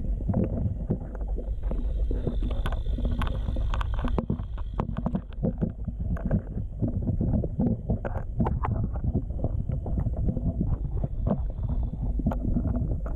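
Muffled underwater rumble of moving water in a Lena sturgeon rearing tank, heard from a camera under the surface. On top of it come frequent small knocks and clicks as juvenile sturgeon crowd and brush against the camera housing.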